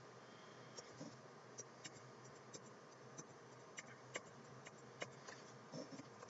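Near silence with faint, irregular clicks of computer keyboard keys pressed one at a time, about a dozen in all.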